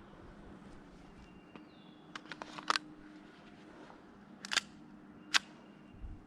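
Airsoft gun shots: a few light snaps about two seconds in, then three single sharp cracks, the first and loudest near the three-second mark and the last two under a second apart.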